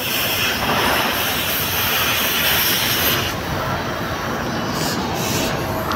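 Compressed air hissing out of the horn compressor's air line for about three seconds, cutting off sharply, then a second short hiss about five seconds in, over a steady low rumble.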